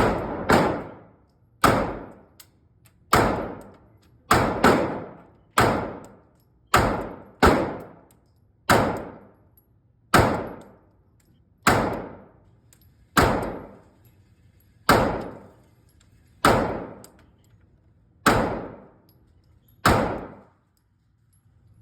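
Glock 26 9mm subcompact pistol fired slowly, about seventeen shots one to one and a half seconds apart with a couple of quick double shots, each report ringing out with an echoing tail.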